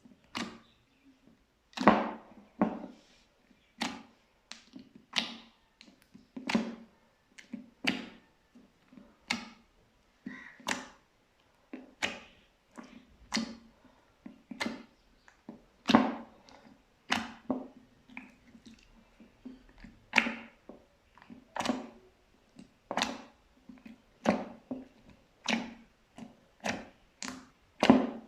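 Slime being pressed and mixed by hand, giving a steady run of short pops and clicks, about one to two a second.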